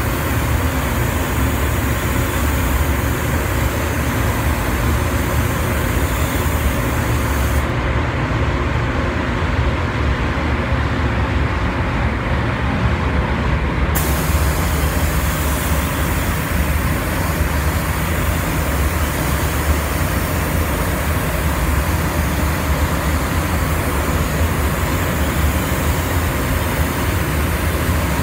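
Steady rush of a paint booth's ventilation, with the hiss of a compressed-air spray gun spraying paint onto a car's hood. The highest part of the hiss drops out for about six seconds near the middle, then comes back abruptly.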